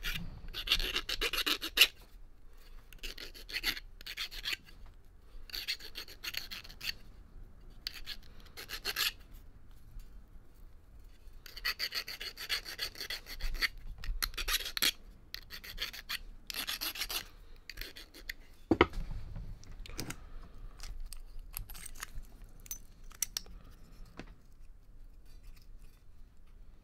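Hand file rasping the cut end of a short piece of copper pipe, in spells of strokes with pauses between them. There is one sharp knock about 19 seconds in.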